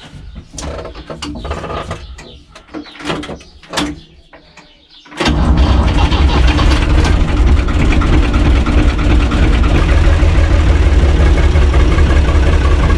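Scattered light clicks and knocks in the tractor cab, then about five seconds in the UTB U445 tractor's four-cylinder diesel engine starts abruptly and runs loud and steady, heard from inside the cab.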